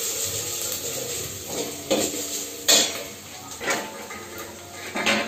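Steel cooking pots and a steel lid on a gas stove knocking and clinking, four separate clanks, the loudest about halfway through.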